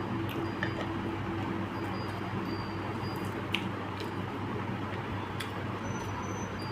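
Wet eating sounds with a few soft clicks, likely chewing and food being mixed by hand, over a steady background hum.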